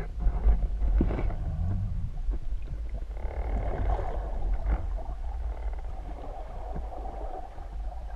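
Muffled underwater noise heard through a submerged camera's housing: a constant low rumble with a few knocks in the first second or so, and a steady hum that comes in about three seconds in.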